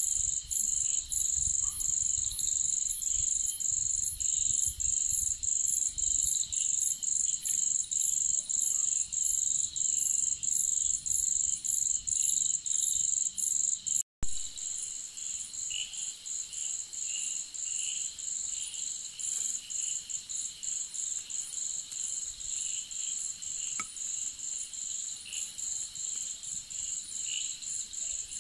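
Night insects, crickets or the like, trilling in a steady high-pitched chorus that pulses about twice a second. A low rumble runs under the first half, and about halfway through a cut leaves the chorus a little quieter.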